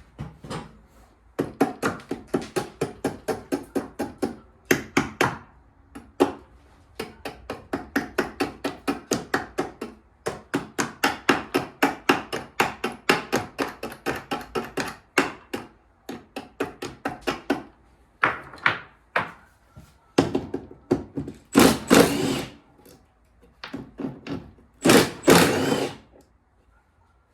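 Tool work on an ice-caked snowblower cover: runs of rapid knocks, about five a second, lasting several seconds each, then two longer, harsher bursts near the end that fit a cordless impact driver on the cover screws.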